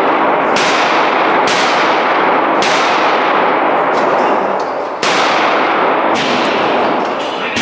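Gunshots at a shooting range, about one a second, each sharp crack ringing on in a long echo.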